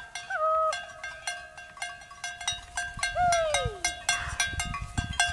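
A woman's high cattle-herding call in the style of Scandinavian kulning: a short held note just after the start and a long falling glide about three seconds in. Cowbells on the approaching cattle clank throughout.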